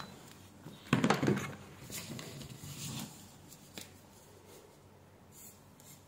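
Quiet handling sounds on a workbench: a sharp clack about a second in as multimeter test probes are put down, then light rustling, a few faint ticks and pen scratches on paper.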